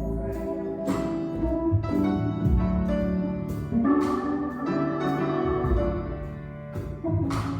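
Instrumental gospel music on keyboard, with held chords and struck notes, introducing a song before the singing begins.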